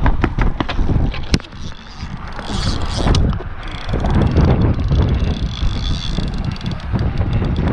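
Wind buffeting the camera's microphone in gusts, with a quick run of sharp clicks and knocks in the first second and a half.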